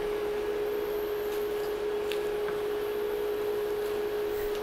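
Steady electrical hum holding one unwavering tone over a low hiss. A few faint soft knocks come from a wooden spoon stirring spinach in a saucepan.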